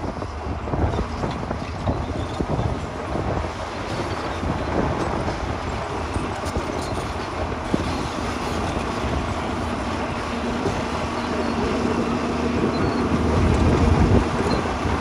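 Heavy earthmoving machinery at work: a diesel engine running under load with a steady low rumble and clatter. A steady engine tone comes in about ten seconds in, and it grows louder near the end.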